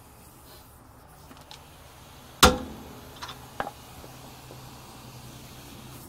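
A single sharp metallic clank about two and a half seconds in, like a steel tool or part knocking against metal, followed by two lighter clicks, over a faint steady hum.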